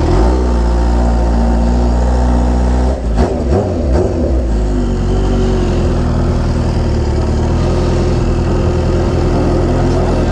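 Kawasaki Ninja H2R's supercharged inline-four running steadily at low revs as the motorcycle rolls slowly. About three seconds in the note briefly dips, with a couple of sharp knocks, then settles again.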